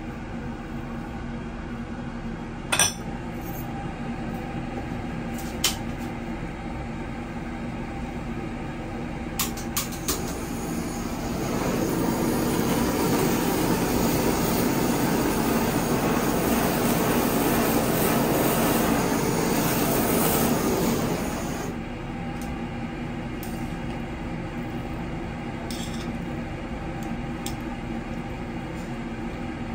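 Restaurant ambience: a steady mechanical hum, with a few sharp clinks of glass or tableware in the first ten seconds. About eleven seconds in, a louder hiss starts and holds for about ten seconds before dropping back to the hum.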